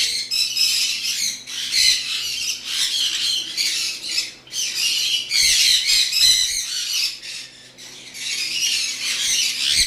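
Pineapple green-cheeked conures squawking in harsh, high-pitched chatter almost without pause, easing off briefly about three quarters of the way through.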